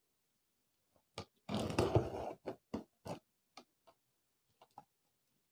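Hands handling a taped cardboard carton: a short scraping rustle about one and a half seconds in, followed by a string of light taps and clicks on the box.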